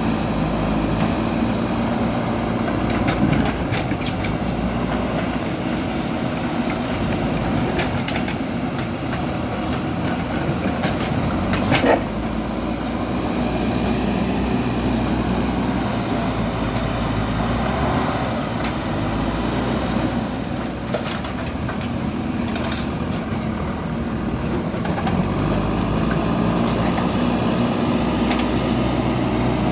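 JCB backhoe loader's diesel engine running steadily under work, with scattered knocks and clanks as the bucket strikes old concrete; one sharp bang about twelve seconds in is the loudest.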